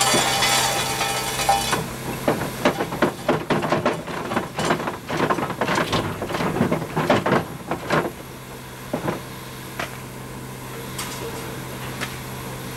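A steam locomotive's ashpan gear is worked by hand with a lever to dump ash and clinker, giving metal clanking and rattling. A rushing hiss opens the sound, then a quick run of knocks lasts about six seconds, then it settles to a low steady hum.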